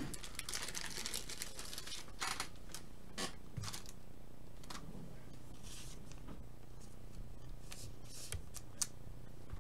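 Short rustles and scrapes of stiff clear plastic as a trading card is handled and slid into a plastic sleeve and holder, in several brief bursts over a faint steady hum.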